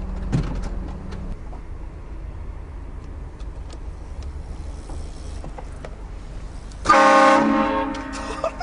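Low vehicle rumble, then about seven seconds in a single short, loud blast from a vehicle-mounted train horn, several notes sounding together, fading away over about a second.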